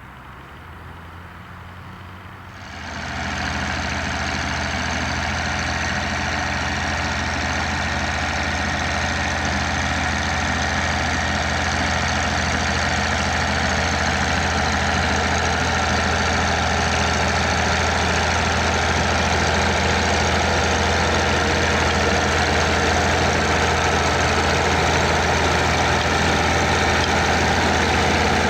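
MB-Trac tractor's diesel engine running steadily. It is quieter for the first couple of seconds, then loud from about three seconds in.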